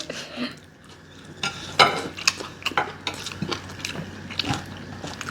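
Eating utensils clinking and scraping against dishes while noodles are eaten: irregular light clinks, several a second, starting about a second and a half in.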